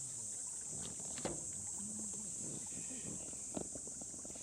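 Steady high-pitched chorus of insects, with a couple of soft knocks about a second in and again past the middle.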